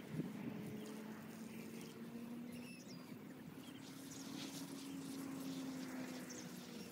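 Faint outdoor ambience: a low, steady hum that drifts slightly up in pitch and fades near the end, with a few faint high chirps.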